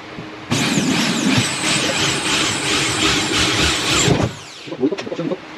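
Corded electric drill boring a hole into drywall, starting about half a second in and running for about three and a half seconds with a whine that repeatedly rises and falls in pitch, then stopping.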